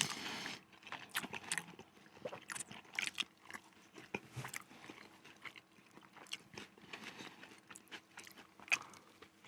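Someone chewing a mouthful of chicken burger close to the microphone: quiet, irregular crunches and mouth sounds from the bun and crisp lettuce.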